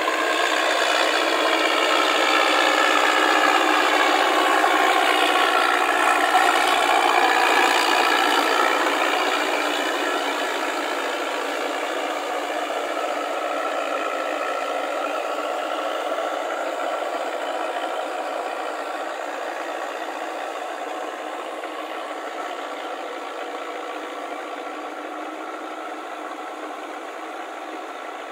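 Tractor engine running under load while its rear rotary tiller churns through a flooded rice paddy. Loudest in the first several seconds, then fading steadily as the tractor moves away.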